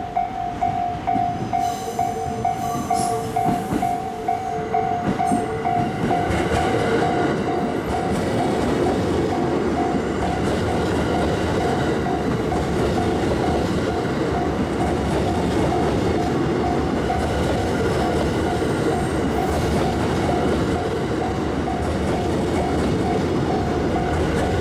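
Japanese level crossing warning bell ringing in a steady repeating ding while a train passes over the crossing; from about six seconds in, the rumble of wheels on rail grows louder and stays under the bell.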